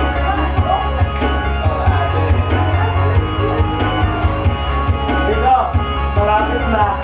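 Karaoke music playing through a speaker, with guitar and a steady bass beat.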